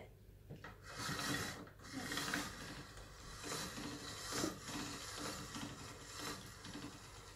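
Hand-cranked pasta machine rolling a sheet of pasta dough through its steel rollers on a thin setting: a continuous grinding whir with a low hum that swells about once a second as the crank is turned.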